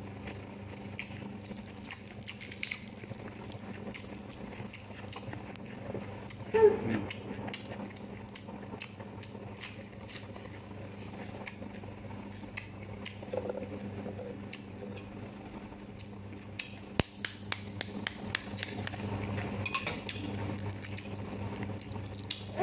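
Mealtime eating sounds: cutlery and dishes clinking, with a quick run of about six sharp clicks near the end, over a steady low hum. A short pitched call that rises and falls comes about six and a half seconds in.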